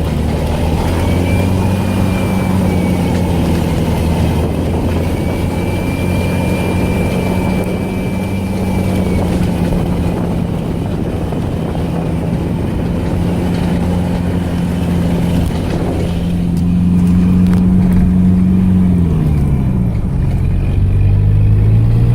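ARO off-road vehicle's engine running steadily under load while driving, with rough rumbling noise over it. Near the end the revs drop sharply and then climb again.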